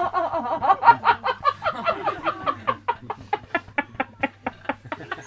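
Long run of rapid, cackling laughter: short pitched 'ha' pulses, about five or six a second, going on without a break.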